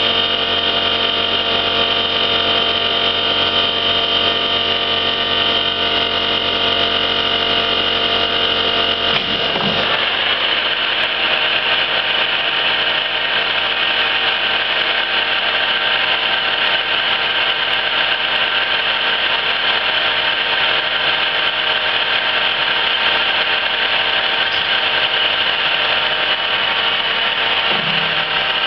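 1974 Emi-Mec E Sprint plugboard automatic lathe running through its turning cycle on a slow-feed test run, with a steady mechanical whine made of several held tones. The sound changes abruptly about nine or ten seconds in, and shifts briefly again near the end.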